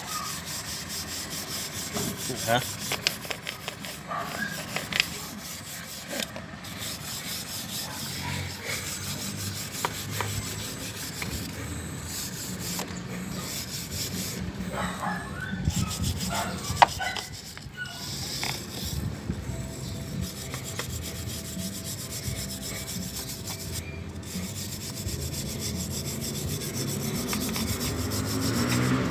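Steel wire brush scrubbing rust off a motorcycle drive chain, bristles rasping back and forth over the links with scattered clicks, and one sharp click a little past halfway.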